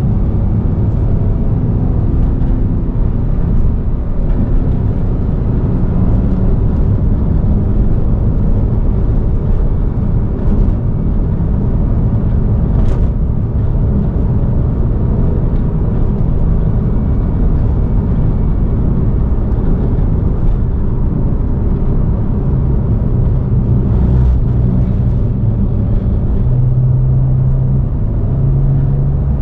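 2014 Porsche 911 on the move: its flat-six engine runs under steady tyre and road noise, the engine note shifting up and down with the pace. Near the end the engine tone grows stronger and holds steady.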